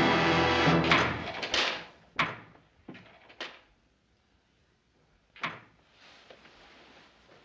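Orchestral score dies away about a second in. A handful of sharp knocks and clicks follow over the next few seconds, with one more about five seconds in.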